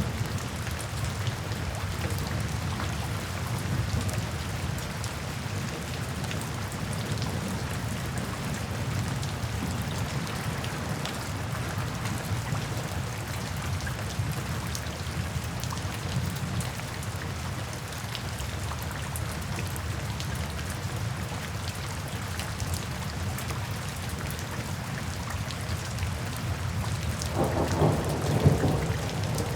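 Steady rain falling into puddles and standing water, with scattered drop ticks over a low rumble of thunder. Near the end a louder roll of thunder builds.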